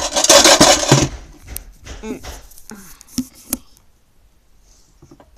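Plastic pencil case handled and moved on a wooden desk: about a second of loud scraping, then a few sharp knocks.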